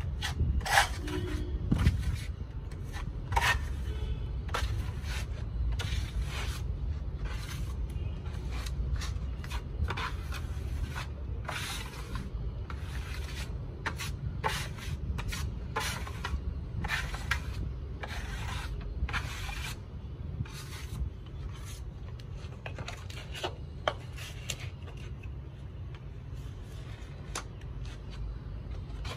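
Steel trowel scraping and smoothing a second coat of wall putty onto a wall, in a long run of short, irregular strokes that thin out near the end.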